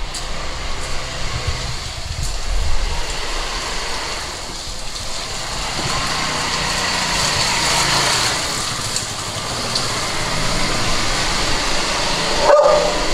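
Motor scooter riding up a narrow alley toward the listener and passing, its engine and tyre noise swelling to the loudest about eight seconds in, then fading.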